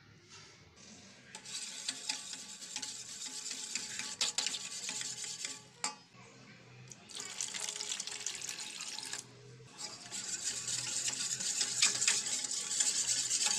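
Wire balloon whisk beating yogurt in a stainless steel bowl: a wet swishing, with the wires clicking and scraping against the metal. It comes in three spells of a few seconds each, with short pauses between.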